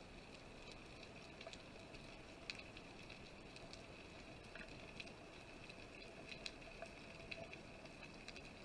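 Faint underwater ambience: a steady hiss with scattered sharp clicks and crackles.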